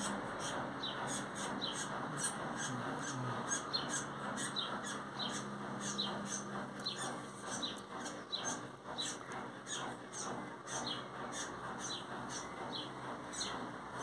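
Red-crested cardinal fledgling's begging calls: short, high, down-slurred chirps repeated about twice a second without a break.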